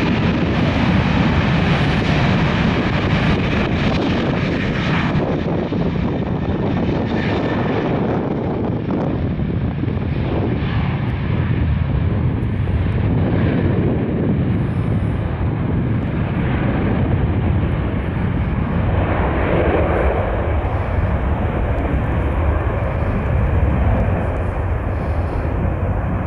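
Boeing 737-800's twin CFM56-7B turbofan engines at takeoff thrust, a steady loud jet rumble during the takeoff roll. The hiss at the top of the sound grows duller over the first several seconds as the aircraft moves away down the runway.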